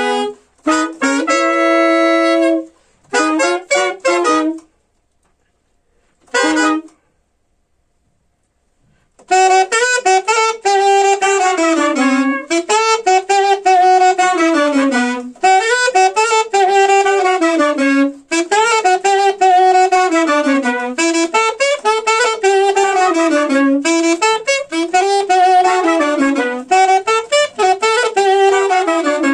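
Saxophones and a trumpet playing a melody together live: a few short phrases, a pause of about four seconds with a single brief note in it, then a continuous flowing line from about nine seconds in.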